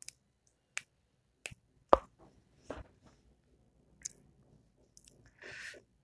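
A few faint, scattered clicks, the loudest about two seconds in, then a short breath-like hiss near the end.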